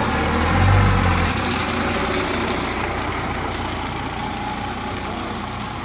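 School bus engines running as a steady mechanical noise, with a brief louder low rumble about half a second in.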